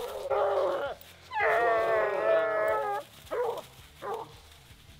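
Walker coonhound baying: a short bawl, then a long drawn-out bawl of about a second and a half, then two short barks near the end.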